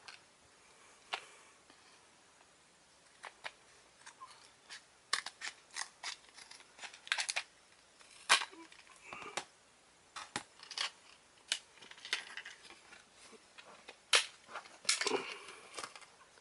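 Scissors cutting open a cardboard-backed plastic blister pack: a series of irregular, sharp snips and clicks spread over several seconds.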